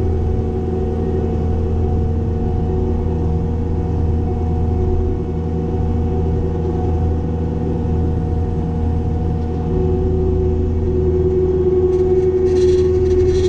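Cat 262D skid steer's diesel engine running steadily while brush mowing, with a steady whine that grows stronger toward the end. A few short crackling noises come near the end.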